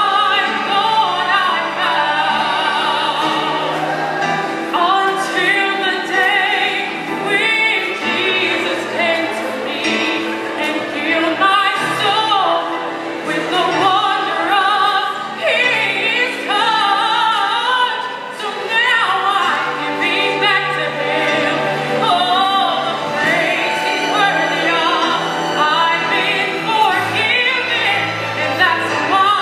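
A woman singing solo into a microphone with strong vibrato, carried over a PA. Sustained low notes from an instrumental accompaniment sit beneath her voice.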